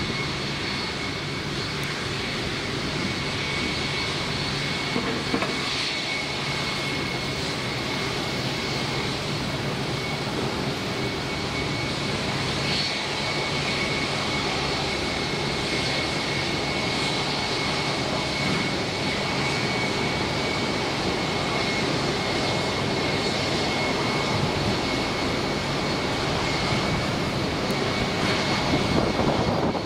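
Boeing 787-9's Rolls-Royce Trent 1000 jet engines at approach power on final approach to landing: a steady jet noise with a high fan whine, growing a little louder near the end as the airliner flares over the runway.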